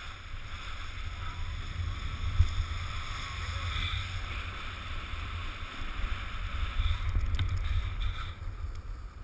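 Skis sliding and carving over snow on a downhill run, a steady hiss, with wind buffeting the helmet camera's microphone as a rumble that rises and falls.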